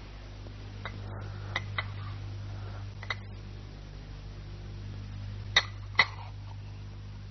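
Porcelain teacups clinking a few times over a steady low hum, with the two loudest clinks close together about three-quarters of the way through.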